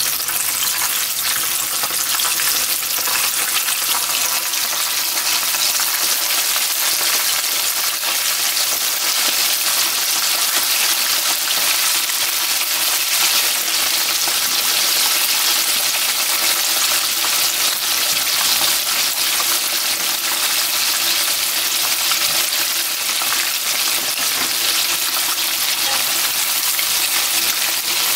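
Battered boneless chicken pieces frying in shallow oil, a steady dense crackle and sizzle of bubbling oil. This is the second fry, meant to crisp and brown the crust.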